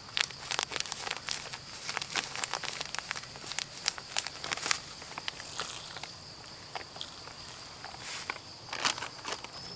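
Wood fire crackling and popping under a clay cooking pot, with irregular sharp snaps that come thick at first, thin out, and bunch again near the end. A steady high insect drone runs behind it.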